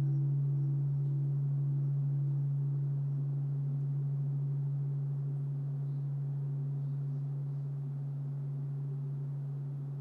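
Large bronze Japanese temple bell (bonshō) ringing on after a strike: a deep steady hum with a higher tone above it that throbs about twice a second, the whole slowly dying away.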